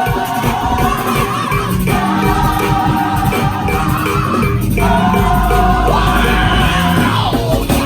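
Gospel choir singing long held chords over instrumental accompaniment, the voices changing chord about every two to three seconds.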